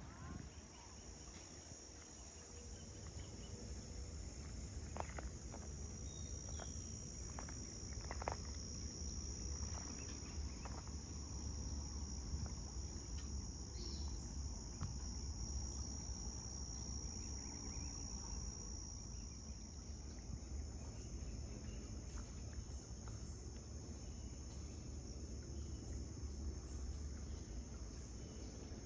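Insects chirring in a steady, continuous high-pitched chorus, over a low rumble, with a few faint clicks about five to eight seconds in.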